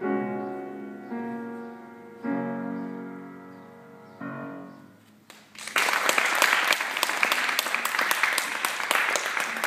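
Piano playing the last few chords of a song, each struck and left to ring and fade, four in all. A little over halfway through, audience applause breaks out and keeps going.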